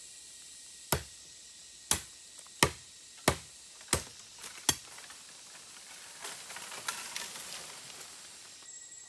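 Machete chopping into the base of a green bamboo culm: six sharp strokes about 0.7 s apart. After them the cut culm tips over, and its leaves and branches rustle and crackle for about two seconds.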